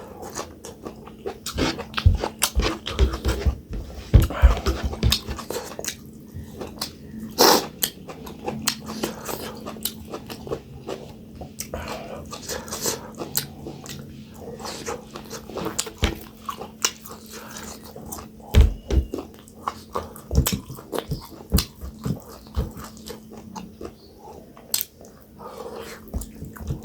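Close-miked eating sounds: irregular chewing, biting and wet mouth smacks as millet dhido with dried buffalo-meat sukuti and pumpkin curry is eaten. A steady low hum runs underneath.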